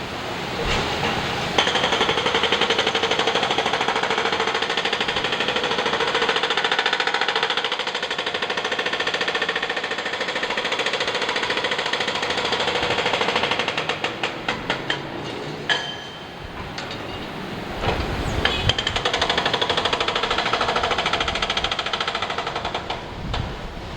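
Construction-site machinery hammering rapidly and continuously, a loud mechanical rattle of fast repeated strikes. It stops about halfway through, gives a few separate knocks and a lull, then starts another long run near the end.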